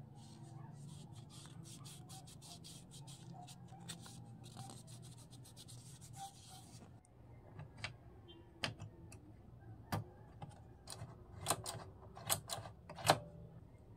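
Hands working the tonearm mechanism of an ADC 1600DD turntable: a scratchy rubbing with fine rapid ticks for about seven seconds, then a run of separate sharp clicks, the loudest near the end.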